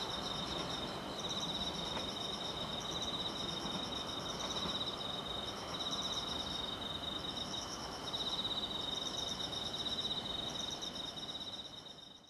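Night insects chirping: one sings a steady fast trill while another chirps higher in short phrases repeated every second or so, over a faint even hum. The sound fades out near the end.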